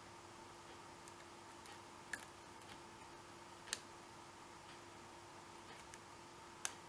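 Lock pick and tension wrench working the steel pin stacks inside an American Series 790 padlock: faint ticks and three sharper metallic clicks, spread out, over a low steady hum.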